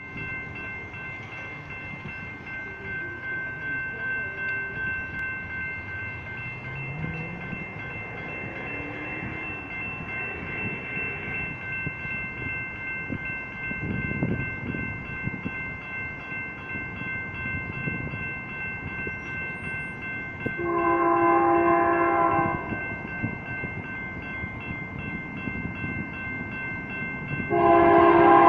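Air horn of an approaching BNSF diesel locomotive hauling a double-stack intermodal train: one long blast about three-quarters of the way in, and another starting just before the end. Under it is a steady background hum with faint high steady tones.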